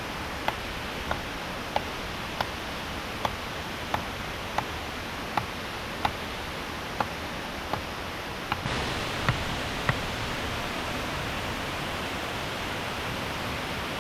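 Steady rush of falling water, with a run of sharp knocks, about one and a half a second, that stops about ten seconds in. The water grows louder and brighter a little before the knocks end.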